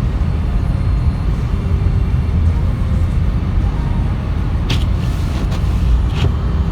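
Steady low rumble of a car driving, heard from inside the vehicle, with two short clicks about a second and a half apart near the end.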